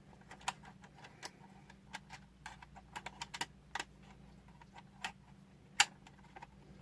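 Hard Playmobil plastic parts clicking and tapping together as a piece is fitted onto the toy DeLorean's front bumper: scattered, irregular sharp clicks, the loudest a little before the end, over a faint steady hum.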